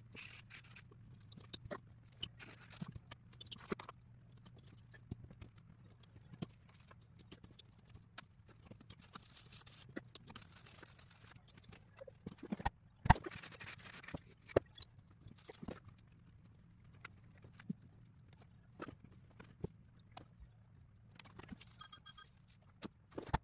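Irregular clicks and taps of plywood model-kit parts being handled and pressed together, with one sharper knock about halfway through, over a low steady hum. A brief high tone sounds near the end.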